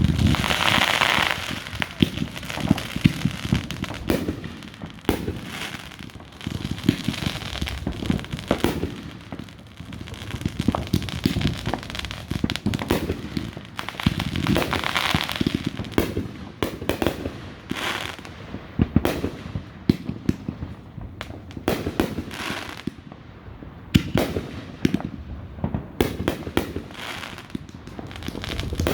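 Fireworks display: a rapid, irregular series of bangs and booms, with bursts of dense crackling near the start and again about halfway through.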